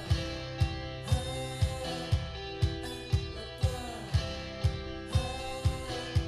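Instrumental stretch of a pop song played through Thonet & vander Kugel speakers: sustained keyboard and guitar tones over a steady kick drum at about two beats a second.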